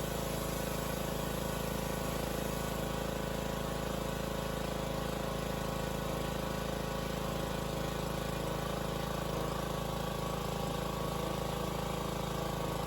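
An engine running steadily at one constant speed, with no revving.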